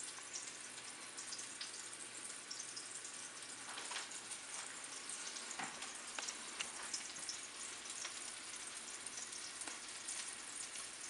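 Small ground-beef meatballs frying in hot olive oil in a pan: a steady sizzle with scattered crackles and pops.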